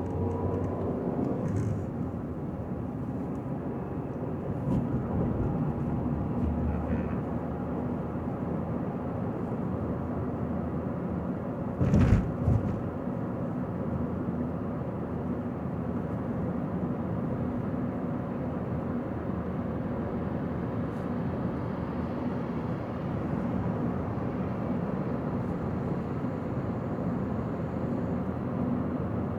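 A car driving, with steady engine and tyre noise. About twelve seconds in there is one sharp, loud thump.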